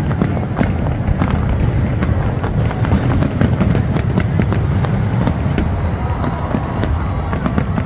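Fireworks going off in rapid succession: a continuous low rumble of bursts with many sharp cracks over it.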